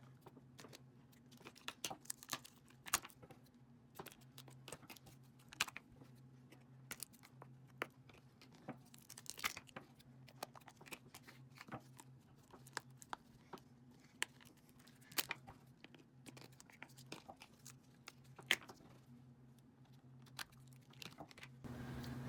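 Faint, irregular crinkling and tearing of plastic packaging as small slime containers are unwrapped by hand, with scattered sharp clicks and crackles.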